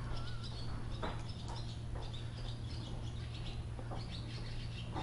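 Small birds chirping faintly, short scattered calls over a steady low hum.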